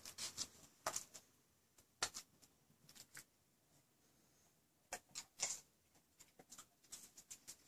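Faint, scattered ticks and scuffs from a small dog moving about on a rug, coming in small clusters a second or so apart.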